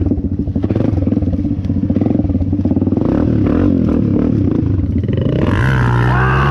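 Dirt bike engine running at low speed as it picks through rough woodland ground, with the bike rattling over bumps. About five and a half seconds in, the engine note rises and holds steady.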